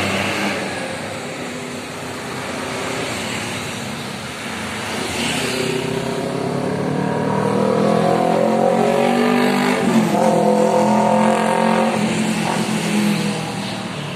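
Road traffic of motorcycles and buses passing close by. From about six seconds in, one engine revs up and rises in pitch; it is loudest around ten seconds in, then fades.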